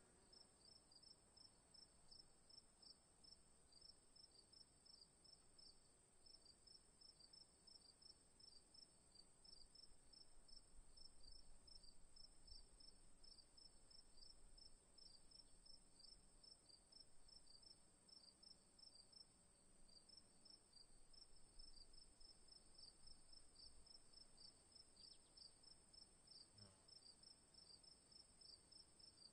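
Crickets chirping faintly in a quick, even rhythm of several chirps a second over a continuous high-pitched insect trill, with a short break in the chirping about twenty seconds in.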